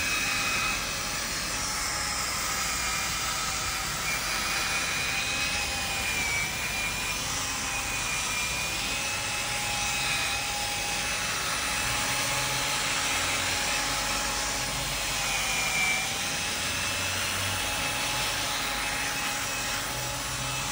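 High-speed electric fan motor of a cleaning machine running steadily, with a rushing air hiss and a whine that wavers slightly in pitch.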